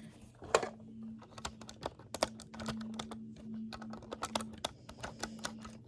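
Irregular light clicks and taps of small plastic N scale model train cars being handled and set on the track, the sharpest about half a second in, over a steady low hum.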